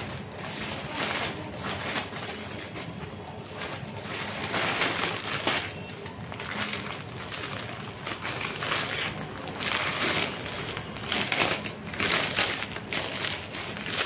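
Clear plastic packaging crinkling and rustling in irregular bursts as a garment is handled and pulled out of its bag.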